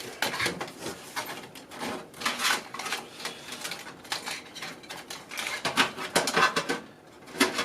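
Computer parts being handled and fitted inside a PC case: a run of irregular light clicks, knocks and rattles.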